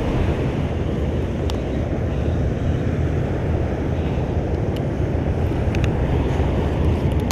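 Steady low rushing noise of wind on the microphone at the beach, with a few faint short high ticks over it.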